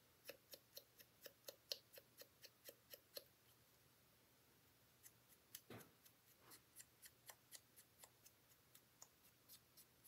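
Faint, quick tapping of a marker tip against a small paper piece, about four taps a second, in two runs with a pause of under two seconds between them.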